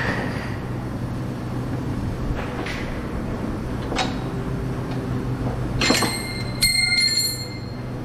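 Metal-on-metal taps and clinks as a metal brace is handled and pushed into place against a car's cradle and underbody. There are a few light taps in the first four seconds and a cluster of ringing metallic clanks around six to seven seconds, over a steady background hum.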